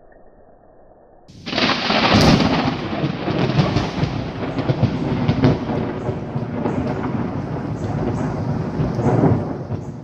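Thunder from a nearby lightning strike: it breaks in suddenly about a second and a half in, with a sharp crack, then rolls on as a long rumble with repeated peaks, swelling once more near the end before fading.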